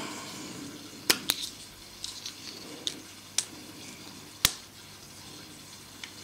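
Several sharp clicks and taps of small hard objects being handled, about five spread over a few seconds, over faint rustling.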